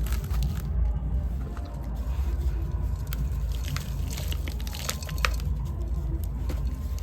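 Dry, dusty sand cylinders crumbling and crunching, giving many small irregular crackles.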